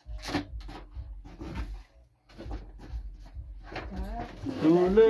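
Irregular knocks and scrapes from hands working on a large cardboard shipping box. Near the end a person starts humming a tune.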